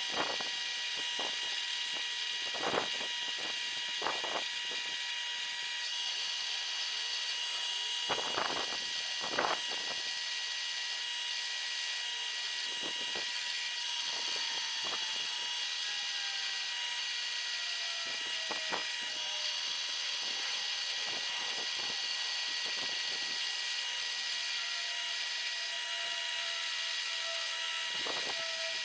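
Benchtop drill press spinning a wire wheel while a cast metal part is pressed against it to brush it clean: a steady high whine and hiss from the motor and bristles, broken by many short scraping ticks where the part meets the wheel.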